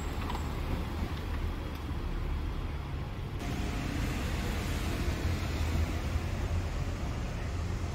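Street ambience at night: a steady low rumble of distant road traffic under a faint even hiss.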